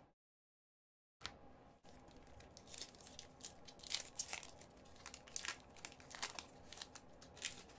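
Hockey trading-card pack wrapper being torn open and crinkled by hand, starting about a second in. A rapid, irregular run of sharp crackles follows.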